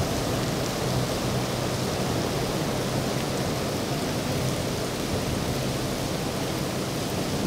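Steady hiss of heavy rain, with a faint low drone beneath it from a speedboat's four outboard engines.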